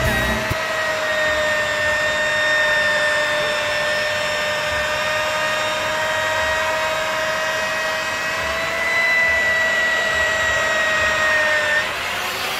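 Electric rotary polisher running steadily with a high whine as its pad buffs car window glass. Near the end the whine drops in pitch and gets quieter.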